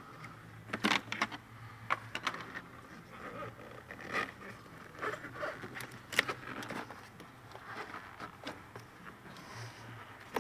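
Gloved hands handling a plastic cowl trim panel: scattered short clicks and scrapes of plastic, a few each couple of seconds, with a faint steady low hum underneath.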